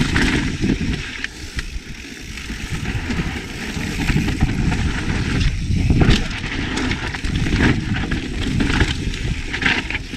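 Yeti SB150 mountain bike descending a rocky dirt trail: tyres crunching over rock and loose dirt, with a steady stream of clicks and knocks from the bike rattling over the bumps and a low rumble.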